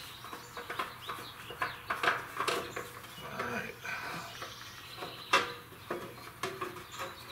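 Scattered clicks and knocks of a spin-on oil filter being worked off a Wheel Horse 520H's engine by hand, with one sharp knock about five seconds in.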